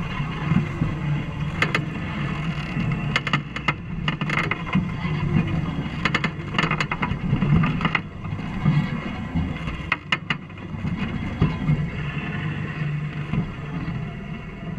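Jeep Wrangler JK crawling slowly over boulders, heard from under the vehicle: a low engine rumble with scattered sharp clicks and knocks, a few of them in quick clusters.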